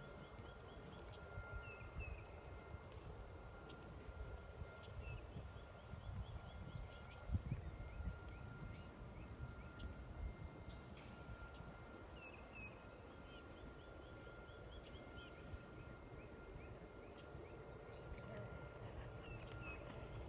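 Birds calling from the trees, a series of short, high notes that slide downward, repeated every second or two, with some lower chirps and trills between. Underneath are a thin steady high tone and an irregular low rumble with one louder knock about seven seconds in.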